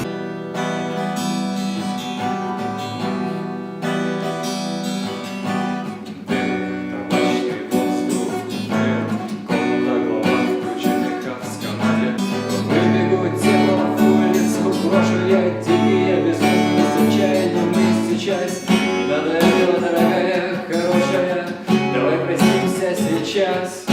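Acoustic guitar playing an instrumental passage of chords and single notes.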